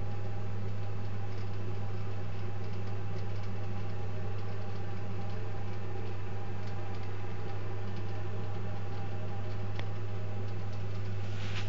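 Protherm Lynx 24 kW gas boiler running with a steady low hum.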